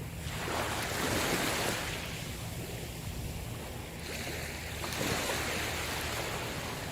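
Ocean waves breaking and washing onto a shore, swelling twice, about a second in and again about five seconds in, over a steady low rumble.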